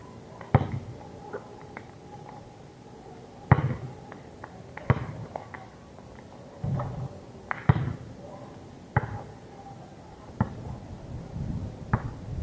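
A basketball being shot and bounced on an outdoor asphalt court: about seven sharp bangs and thuds at uneven intervals a second or more apart, as the ball hits the court and the hoop.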